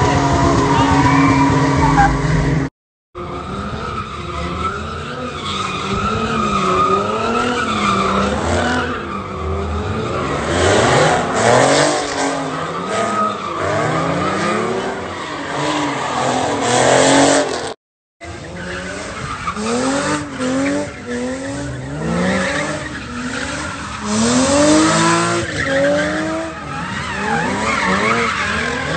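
Car engines revving up and down over and over as they spin their tyres in burnouts and donuts, with tyres squealing. The sound breaks off twice, briefly, where one clip cuts to the next.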